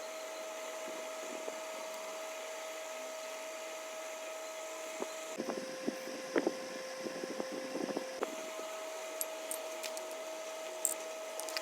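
A small motor running with a steady hum. About five seconds in its pitch drops a little for nearly three seconds while clicks and knocks sound, then it returns to its first pitch.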